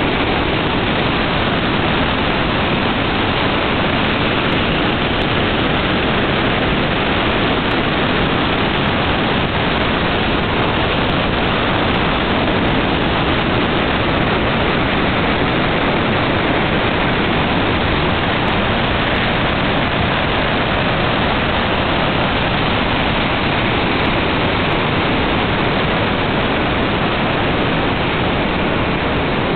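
Bhagirathi river's whitewater rapids rushing over boulders: a loud, steady rush of water.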